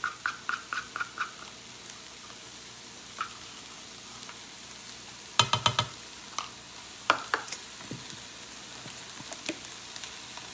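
Browned ground beef with onions, garlic, tomato paste and barbecue sauce sizzling steadily in a frying pan. A run of quick light taps comes in the first second, then a cluster of sharp knocks about halfway through and a few single knocks after, as the pan is worked.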